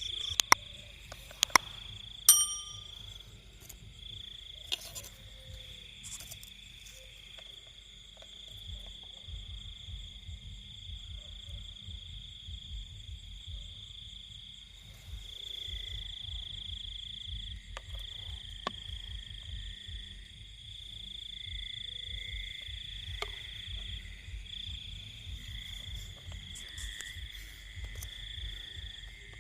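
Night chorus of insects trilling steadily at a high pitch, with frogs calling; a second, lower trill joins about halfway through. A few sharp clicks in the first couple of seconds, one with a brief ringing, and a low rumble underneath.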